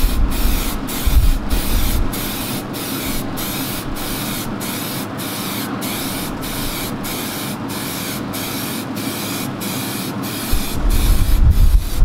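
Aerosol can of black spray paint spraying in a steady hiss, with short regular dips about twice a second. Some low rumbling near the end.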